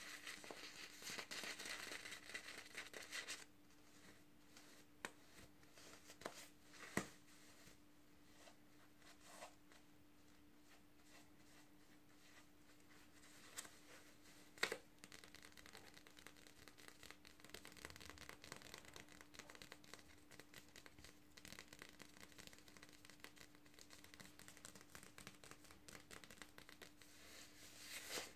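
Fingernails scratching and rubbing the paper label and fibres of a skein of Red Heart With Love Metallic yarn. The scratching is dense for the first few seconds, then turns to soft rubbing with a few light taps, and picks up again near the end.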